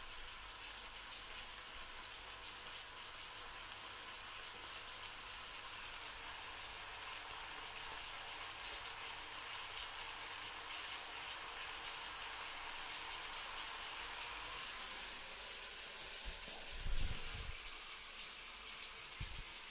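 Bacon sizzling and spitting in a frying pan, a steady crackling hiss. Near the end come a couple of low thuds.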